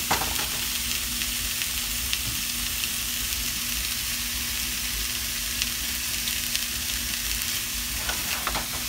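Slices of leftover roast beef sizzling steadily as they sear in a hot frying pan, with a few light clicks from metal tongs turning them near the start and end.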